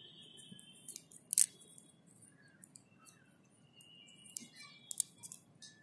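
Small plastic clicks and taps from in-ear earphones being handled in the fingers: ear tips and earbud housings pressed and turned, the cable and jack moved about. A sharper click comes about a second and a half in, and another near the end, with faint high chirps in the background.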